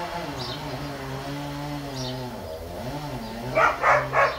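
A dog barks three times in quick succession near the end, over a steady low droning hum.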